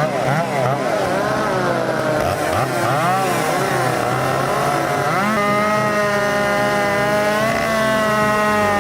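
Two-stroke chainsaw engine revving up and down several times, then held at a steady high speed from about five seconds in.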